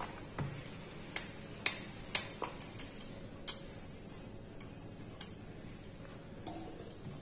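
Wooden rolling pin rolling out stiff dough on a wooden surface: about ten light, sharp clicks and taps at uneven intervals.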